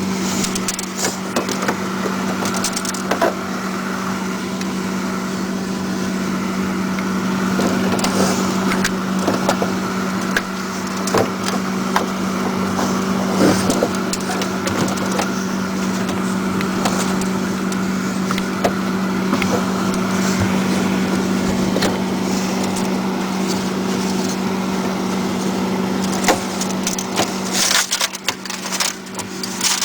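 Towels wiping and scraping loose ice inside a freezer, with irregular crunching and crackling, over a steady low hum.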